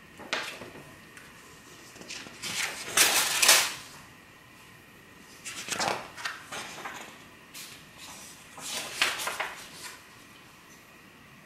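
Comic books being riffled through and pulled from a packed cardboard short box: four rustling, sliding bursts of paper and card, the loudest about three seconds in.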